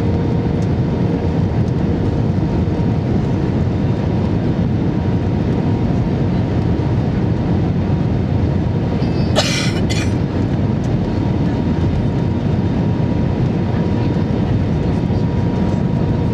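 Airbus A320 airliner in flight: a steady, loud rumble of engines and airflow with a faint steady hum, and a brief crackle about halfway through.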